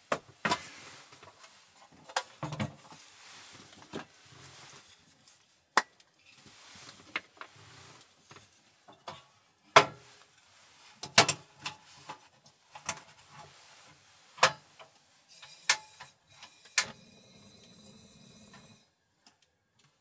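Kitchen items being picked up and set down on a wooden counter: a series of sharp knocks and clinks, one every second or so, with a steady noise lasting about two seconds near the end.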